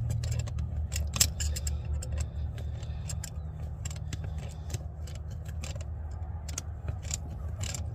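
Irregular metallic clicks and clinks of hand tools working a rusted drum-brake part, over a steady low hum.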